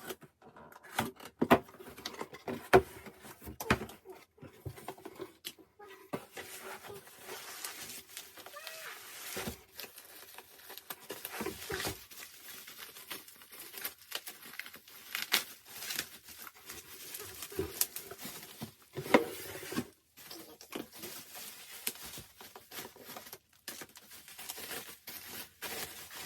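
Plastic shrink wrap crinkling and tearing and album packaging being handled, with scattered taps and clicks from the case and cardboard.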